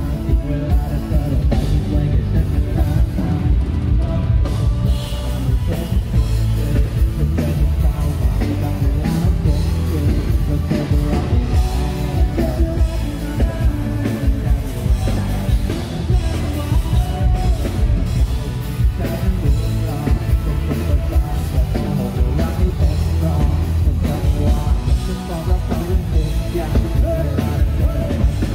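Live band playing a song, with drum kit, bass, electric guitar and keyboard behind a lead vocal into a microphone.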